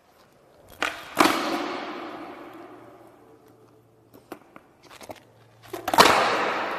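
Skateboard slapping down hard on a smooth concrete floor in a large, echoing indoor skatepark: a snap and slam about a second in and another about six seconds in, each ringing out in a long echo, with a few lighter board clacks in between.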